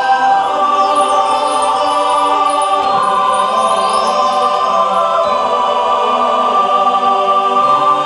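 A choir singing long held notes over musical accompaniment, the closing of a Christmas station-ID song.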